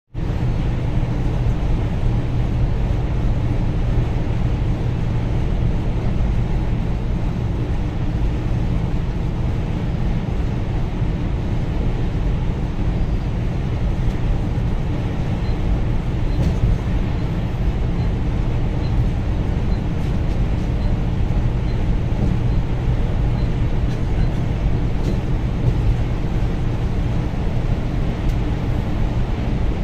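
Moving coach bus: a steady low engine hum with road noise that does not change.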